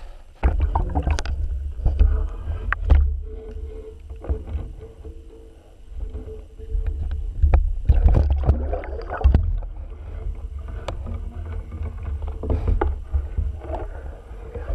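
Water moving around a submerged camera: a low, steady rumble with scattered knocks and clicks, and a faint steady hum for a few seconds in the middle.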